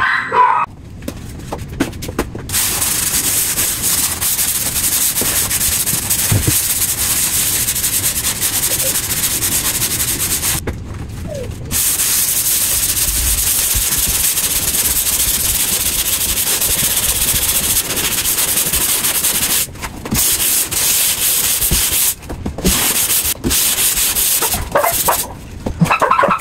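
Dried drywall joint compound being sanded by hand with a sanding pad: a steady, scratchy rasp. It breaks off for about a second around ten seconds in and stops briefly a few times near the end.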